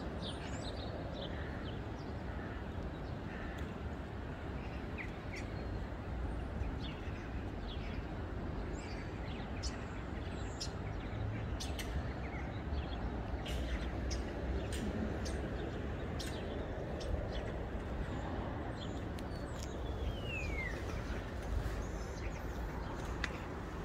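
Outdoor ambience: a steady low rumble underneath, with birds giving scattered short chirps and calls. About 20 s in, one bird gives a clear falling whistle.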